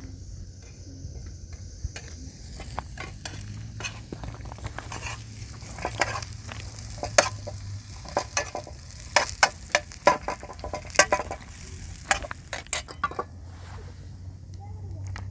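Irregular sharp clicks and scraping of objects being handled, busiest in the middle, over a low steady hum.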